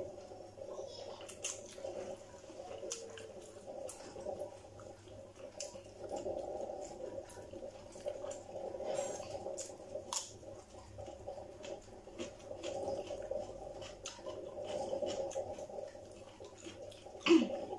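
Close-up eating sounds: chewing, lip smacks and small wet clicks and squishes as instant noodles are picked up by hand and eaten, over a steady low hum. A brief louder sound with a falling pitch comes near the end.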